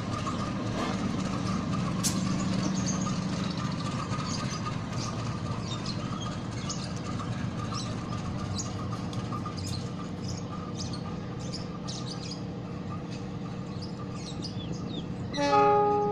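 A diesel-electric locomotive's engine running steadily, with birds chirping over it. Near the end comes one short locomotive horn blast, the loudest sound, which fades away.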